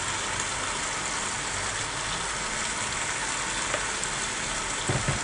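Aubergine pieces frying in oil in a steel pot, a steady sizzle, with a couple of short knocks near the end.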